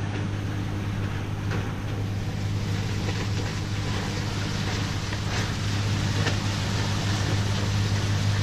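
Sailboat's inboard engine running at a steady low hum, with water rushing and splashing along the hull and wind noise over it.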